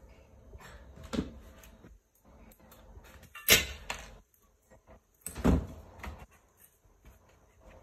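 Parts of a car roof luggage basket frame knocking as they are handled and fitted: three distinct knocks, the middle one loudest, with lighter clicks and taps between.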